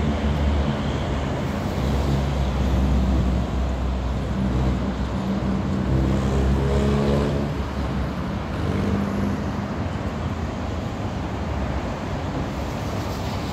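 Steady road traffic on a busy multi-lane street below, with the mixed noise of car and motorbike engines and tyres. About six to seven seconds in, one engine note grows louder and rises in pitch as a vehicle accelerates.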